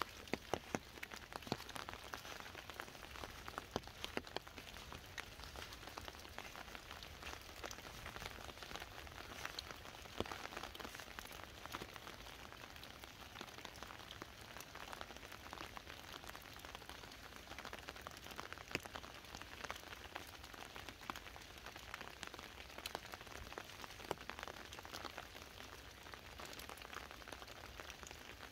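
Steady rain falling, with many individual drops ticking sharply on an umbrella overhead; the ticks are most frequent in the first couple of seconds.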